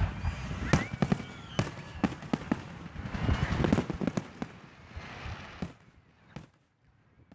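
Fireworks display going off: a rapid run of sharp bangs and crackles over a low rumble, thinning out and fading away near the end.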